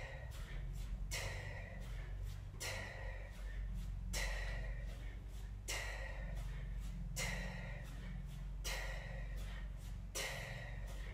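A woman's sharp, hissing exhalations, one forced breath on each two-hand kettlebell swing, coming about every second and a half over a steady low hum.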